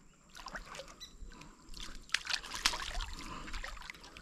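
Light splashing and dripping of water. A run of small sharp splashes and clicks starts about two seconds in.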